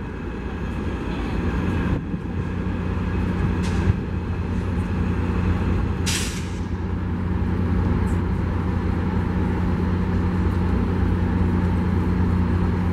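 EMD F59PH diesel locomotive idling with a steady low drone. A short burst of air hiss cuts in about six seconds in.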